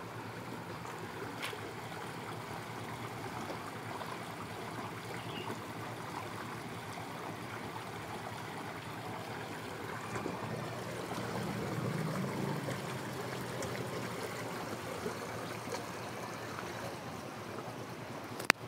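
Steady rush of flowing water, with a single sharp click near the end.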